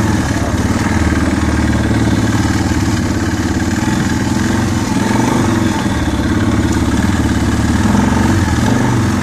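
2008 Arctic Cat 650 H1 4x4 ATV's single-cylinder four-stroke engine running steadily while the quad is ridden slowly. Its note swells a little now and then with the throttle.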